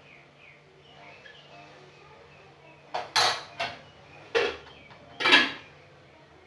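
Dishes and cutlery clattering: a run of five sharp clinks and scrapes in the second half, the loudest near the end.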